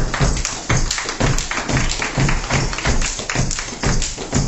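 Gumboot dancing: hands slapping rubber gumboots and boots stamping in a fast, steady percussive rhythm.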